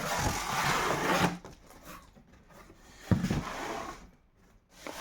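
Packaging being handled while a box is opened: a rustle lasting about a second, then a knock about three seconds in.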